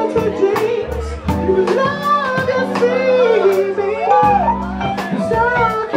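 Live band music: a man sings a wavering melody into a microphone over drums, keyboard and saxophone, with regular drum hits throughout.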